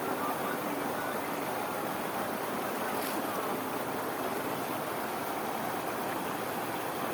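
Water rushing steadily over a small waterfall in a fast irrigation channel.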